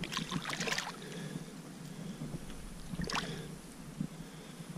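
Water splashing as a big flathead catfish, held by the jaw at the surface, is let go by hand: a splash lasting under a second at the start and a shorter one about three seconds in.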